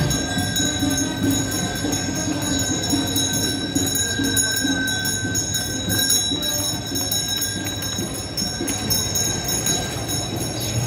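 Bells on the harness of a yoked ox team jingling steadily as the team walks past, over a murmur of street noise.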